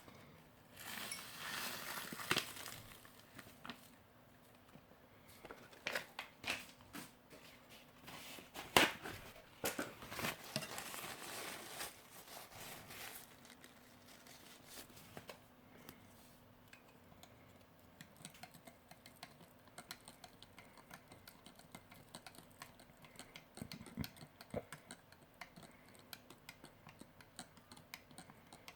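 Plastic and foil ration packaging being handled, crinkled and torn in bursts, followed in the second half by a long run of light, rapid clicks.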